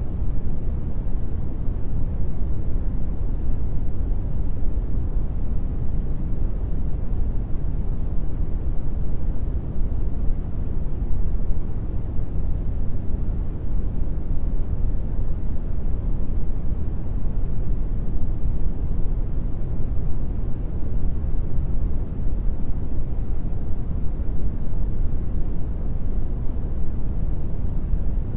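Brown noise: a steady, deep rumbling hiss, strongest in the bass and thinning toward the treble, with no change throughout.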